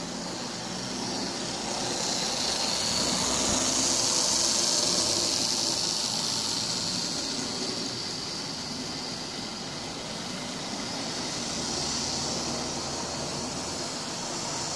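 Lima OO gauge model Class 40 diesel locomotive running round the track with a train of wagons: the motor whirrs and the wheels roll on the rails in a steady noise that swells as the train comes close, about two seconds in, fades by six seconds, and swells again about twelve seconds in.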